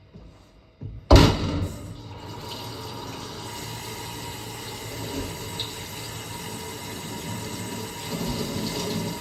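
A sudden loud knock about a second in, then water running steadily from a tap into a sink.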